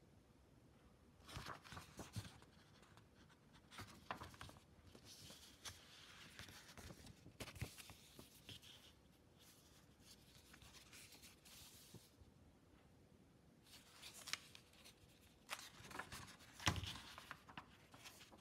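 Faint rustling and light clicks of packaging and items being handled, in short bouts with pauses between, with a louder knock near the end.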